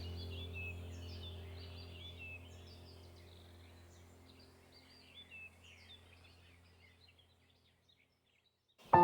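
Background ambient music: a low drone and soft held tones with birdsong chirping over them, fading out to silence near the end.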